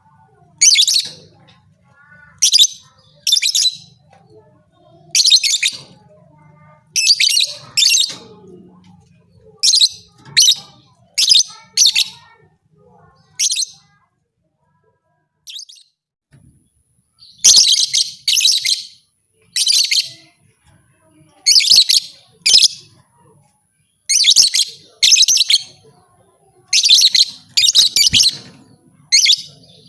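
Lovebird calling in short, shrill chirps, singly and in quick runs of two or three, with a pause of about three seconds midway.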